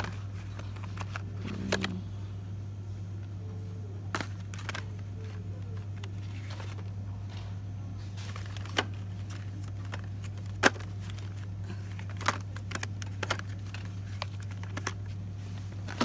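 Handling noise of a phone and cardboard bar soap boxes: scattered irregular clicks and taps over a steady low hum.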